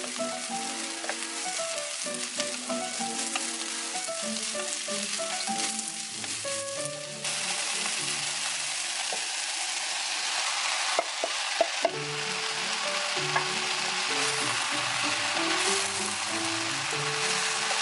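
Sliced chillies, shallots and aromatics sizzling in hot oil in a wok while being stirred with a wooden spatula. The sizzle gets louder about seven seconds in, and there are a few sharp taps around eleven seconds in.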